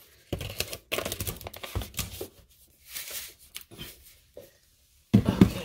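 Rustling and crinkling of packaging being handled, with scattered knocks, densest in the first couple of seconds and sparser after.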